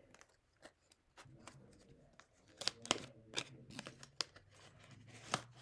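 Packaging of a Moyu MeiLong 4x4 speed cube being opened by hand: a run of small clicks, crinkles and tearing rustles, sparse at first and busier from about halfway through.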